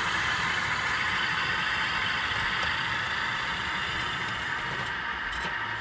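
Model diesel locomotives running slowly while pulling a train of ore cars, a steady, even running sound with no breaks.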